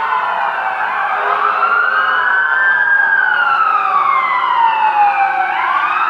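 Emergency vehicle siren on wail, its pitch rising slowly, falling back and starting to rise again near the end, as the vehicle approaches.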